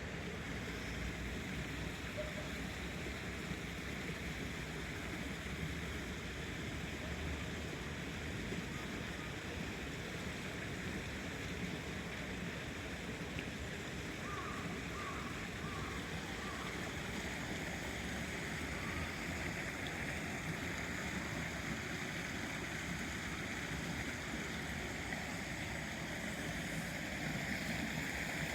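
Stream water running steadily over a small channel. About halfway through come four short faint chirps.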